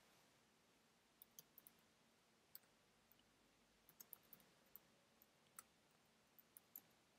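Faint computer keyboard keystrokes: about a dozen short, irregular clicks as a line of code is typed.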